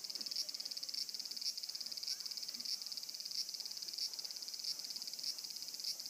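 Cicadas singing in the trees: a steady, high-pitched pulsing buzz that swells in a louder beat a little under twice a second.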